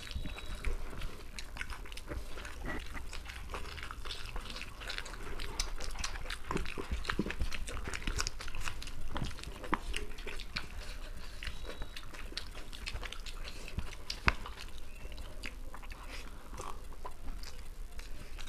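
Close-miked chewing and lip-smacking of two people eating chicken biryani by hand: a dense, irregular run of wet mouth clicks, with one sharper click about fourteen seconds in.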